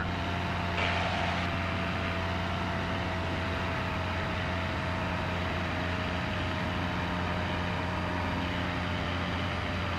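Cessna 177RG Cardinal's four-cylinder Lycoming IO-360 and propeller droning steadily in a climb, heard from the cabin. A thin steady whine that slowly sinks in pitch runs over it while the retractable landing gear is coming up, a slow retraction.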